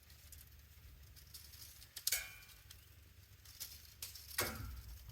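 Metal clinking and knocking as bolts on the sawmill base are adjusted, with two sharp strikes: one about two seconds in with a brief metallic ring, and another near the end, over a faint low rumble.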